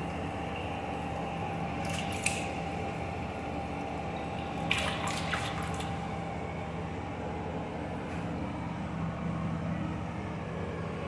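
Water trickling and dripping inside an open toilet cistern, a steady wet hiss. A few short clicks and knocks come from handling the tank about two seconds in and again around five seconds in.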